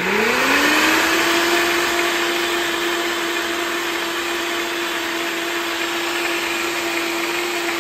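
Nutribullet blender motor running loaded with a thick cream-and-powder mixture: it winds up in pitch over the first second, then runs at a steady high speed.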